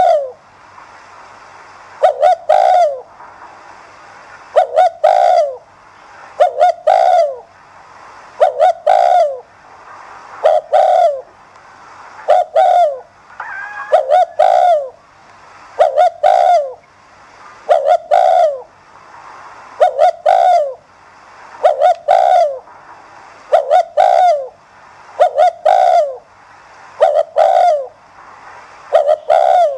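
Spotted dove cooing: a short phrase of a few quick falling notes, repeated steadily about every two seconds.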